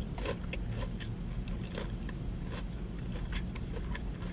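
Chewing a bite of crispy fried Korean cheese corn dog with the mouth closed: irregular soft crunches from the fried batter, over a low steady rumble.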